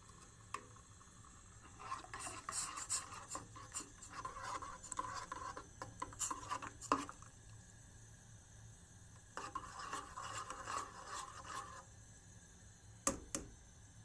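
A metal spoon scraping and stirring in a coffee pot while coffee is being made, in two spells of several seconds each. Sharp clinks come about half a second in and twice in quick succession near the end.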